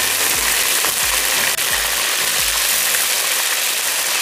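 Ginger-garlic paste sizzling loudly in hot oil just after it is added, stirred with a steel slotted spoon.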